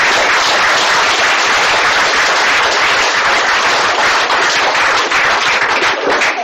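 Audience applauding: many hands clapping steadily, dying away at the very end.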